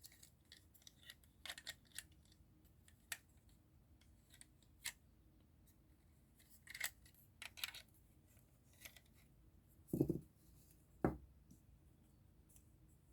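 Small plastic model-kit parts being handled and fitted: scattered light clicks and scrapes, with two duller knocks about ten and eleven seconds in.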